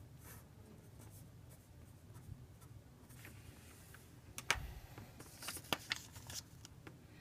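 Faint scratching and tapping of a pen writing out equations, with a few sharper clicks about four and a half seconds in and again a second or two later, over a low steady hum.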